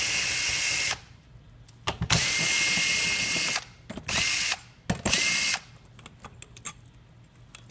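Power screwdriver running in bursts as it backs bolts out of a bed frame: one run ends about a second in, a longer one follows at about two seconds, then two short ones, each starting with a rising whine as the motor spins up. Faint clicks near the end.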